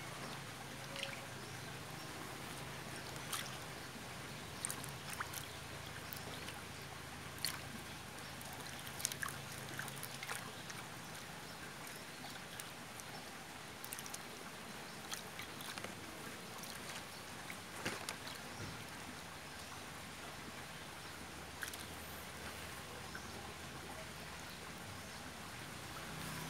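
Quiet outdoor ambience by a fishpond: a steady hiss with scattered faint clicks. A low hum fades out about ten seconds in and returns near the end.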